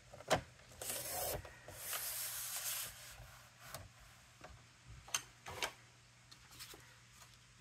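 Card stock being handled and slid on a work surface: a few sharp taps and clicks, with stretches of scraping and rustling about a second in and again around two seconds in.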